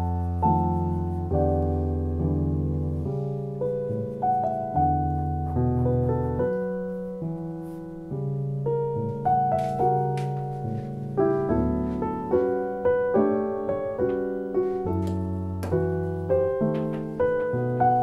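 Solo piano background music: a steady run of single notes and chords, each ringing out and fading.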